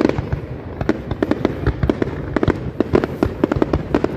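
Fireworks display: aerial shells bursting in a rapid, irregular string of bangs and crackles.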